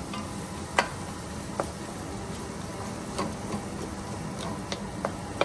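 Tomato and onion sauce simmering in a skillet with a soft, steady sizzle, while a utensil stirs and mashes the tomatoes, clicking against the pan about five times.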